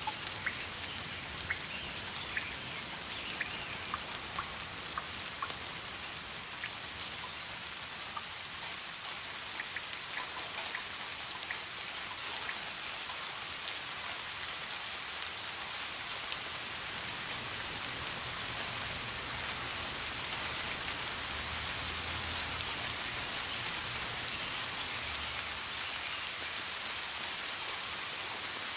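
Steady rain falling, a continuous hiss of many raindrops landing, swelling slightly towards the end.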